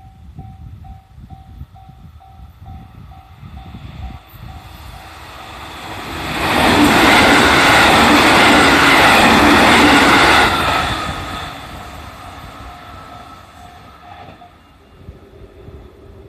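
Level crossing warning bell ringing in quick repeated dings, two or three a second. Then a JR 313 series electric train passes over the crossing: a loud rush of wheels and motors builds about six seconds in, holds for about four seconds and fades away.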